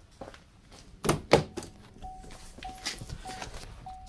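Chevrolet Cruze driver's door being opened with two heavy thunks about a second in, then the car's warning chime starting to beep over and over, about one beep every half second or so.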